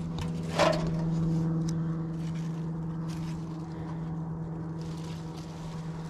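A steady, unchanging motor hum, with faint rustling of leaves and a brief voice-like sound about half a second in.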